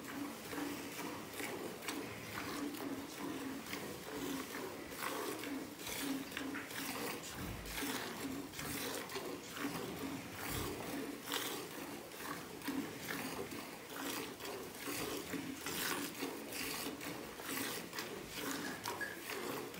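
Cow being milked by hand: jets of milk squirted from the teats into a steel pail already holding frothy milk, in a steady rhythm of about two to three squirts a second.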